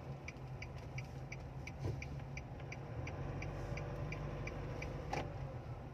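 Car turn-signal indicator ticking evenly, about three clicks a second, over the steady low hum of the car in motion heard from inside the cabin; the ticking stops about five seconds in. Two faint knocks come about two seconds in and again near the end.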